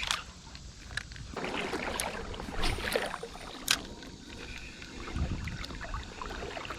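Water sloshing and splashing around a wader's legs as he moves through a creek, with a few sharp clicks.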